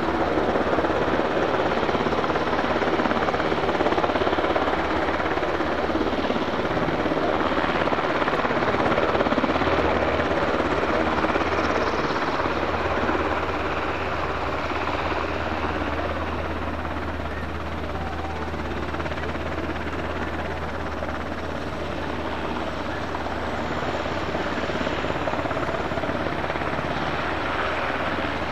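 UH-60J rescue helicopter running steadily: turbine and rotor noise with a low, even rotor beat.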